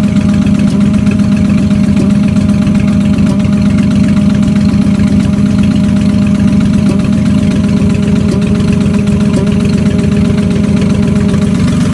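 Ford Mustang engine idling steadily with a rapid, rhythmic knock or tick, which the owner cannot tell apart as rod knock or an exhaust leak.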